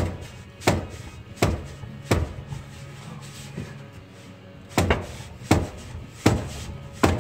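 Sharp metallic clanks of a sneakered foot kicking a 12-point combination wrench on a stuck driveshaft flange bolt, trying to break it loose. There are four kicks about three-quarters of a second apart, a pause of a couple of seconds, then four more, each ringing briefly.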